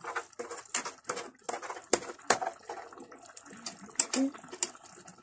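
A pot of vegetables bubbling in liquid on the stove, with irregular sharp clicks and knocks as a hand works in the pot.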